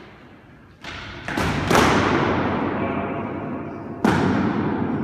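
Foam-padded practice swords striking in sparring: three thumps in quick succession about a second in, the third the loudest, and another about four seconds in. Each hit echoes on in the hard-walled racquetball court.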